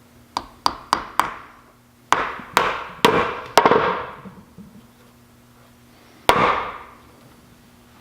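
Hammer driving roofing nails through rubber pads into the bottoms of workbench posts: four quick light taps, then four heavier blows, then one more strike, each ringing briefly.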